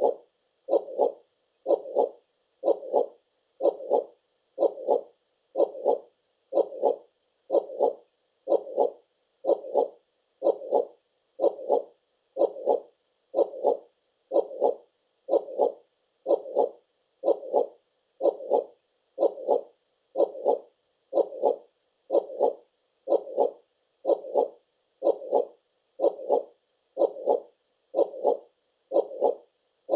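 Heartbeat, a steady lub-dub double beat repeating about once a second.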